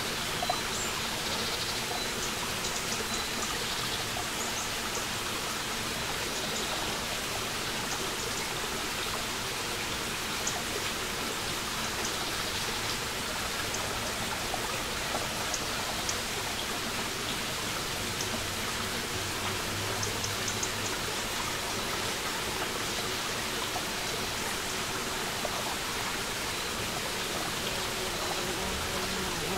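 Small forest brook running over stones: a steady rush and trickle of water, with occasional faint short ticks above it.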